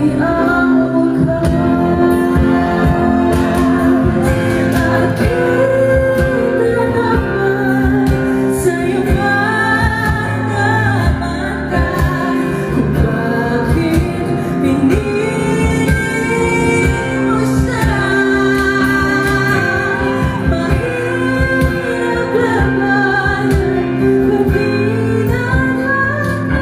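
A woman singing a slow Tagalog ballad, with instrumental accompaniment.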